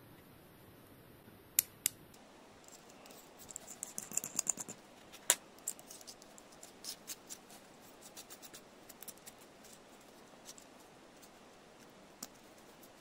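Small metal bicycle hub parts and hand tools clicking and tapping as they are handled. Two sharp clicks come about a second and a half in, then a quick cluster of light clicks with a faint metallic ring around four seconds in. Scattered ticks follow, the last one near the end.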